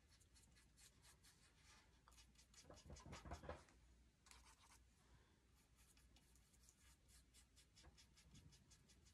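Near silence with very faint, short scratchy strokes of a small paintbrush dabbing acrylic paint onto a painted board, and a few slightly louder rubs around three seconds in.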